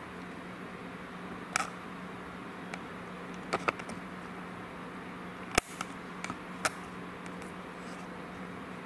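Steady hiss and a faint low hum of a quiet room picked up by a camcorder's built-in microphone. About seven scattered sharp clicks and knocks of handling are heard, the sharpest about five and a half seconds in.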